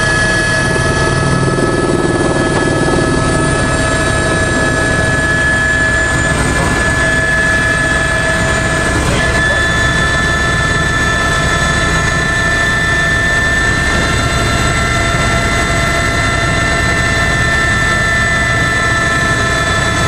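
Eurocopter AS350 B3 helicopter in cruise flight, heard from inside the cabin: a steady turbine whine made of several high tones over the rapid low chop of the main rotor.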